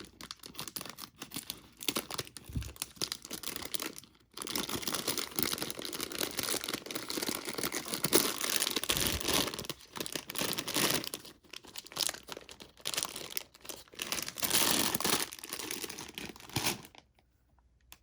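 A packet of incense cones being torn open and its wrapper crinkled by hand: dense, irregular crackling and tearing with short pauses, stopping about a second before the end.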